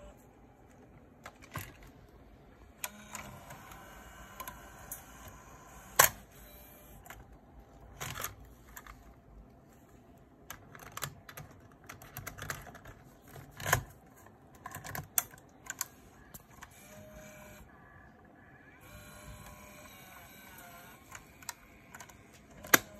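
Plastic clicks and clacks from a Sharp VL-E630 camcorder being handled: buttons pressed, the cassette door opened and the cassette compartment raised and shut. The sharpest clicks come about six seconds in and just before the end, with a faint whir between them.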